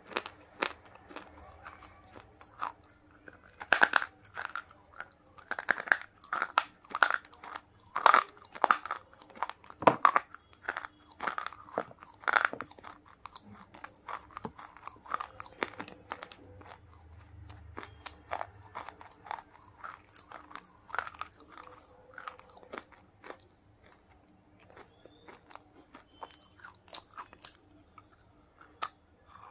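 A person biting off and crunching pieces of a dry pink bar. A run of sharp, loud crunches comes in the first half, then sparser, quieter chewing crunches.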